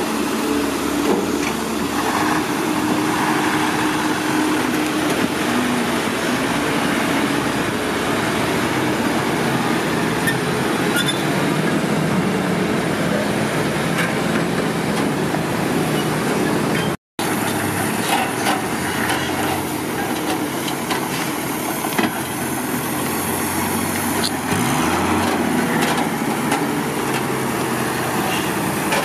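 Heavy vehicle's engine running loudly and steadily, with a dense mechanical din over it; the sound drops out for a split second a little past halfway.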